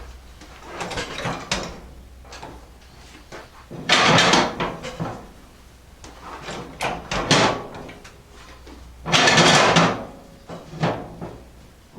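Workshop handling noises: three loud scraping or sliding bursts about a second long, near the start, about four seconds in and about nine seconds in, with lighter knocks and clatter between them.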